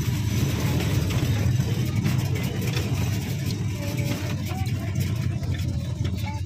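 Engine of a moving vehicle running steadily, heard from on board, with a constant low rumble of engine and road noise.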